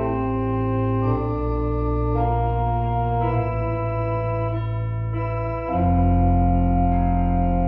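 Organ music playing slow, sustained chords that change every second or two, growing louder with a deeper bass chord near the end.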